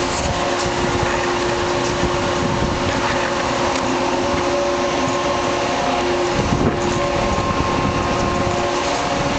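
Grain-handling machinery running steadily: an even mechanical drone with several steady hums over it, the way fans and motors sound. A brief low rumble comes about two-thirds of the way through.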